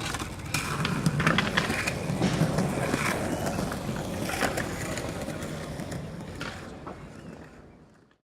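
Skateboard rolling with a steady low wheel rumble, broken by sharp clacks and knocks every second or so, fading out over the last couple of seconds.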